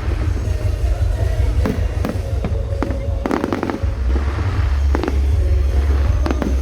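Fireworks going off: clusters of sharp bangs and crackling bursts, the densest about three seconds in, over a heavy low rumble. Music plays alongside.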